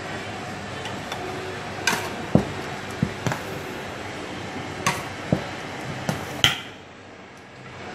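Round metal cake tins knocking and clattering against a stainless-steel counter as baked cheesecakes are handled, a string of sharp knocks over a steady background noise.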